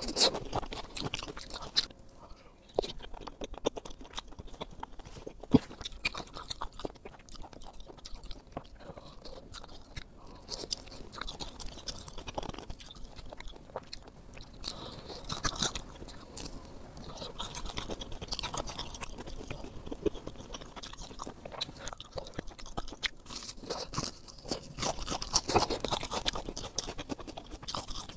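Close-miked eating of sauce-coated fried skewers: wet chewing and munching with irregular crisp crunches, a sharp loud bite about five and a half seconds in. It opens on a bite into juicy fried cabbage.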